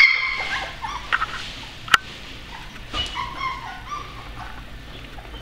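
Slovensky Cuvac puppies whimpering and squealing in high-pitched cries, loudest at the start and again about three seconds in, with a sharp click about two seconds in. The puppies are frightened on their first time out of the whelping box.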